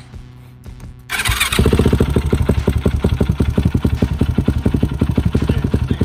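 A 2008 Yamaha YFZ450 quad's single-cylinder four-stroke engine fires up about a second in. It settles at once into idle, a quick, even beat of firing strokes.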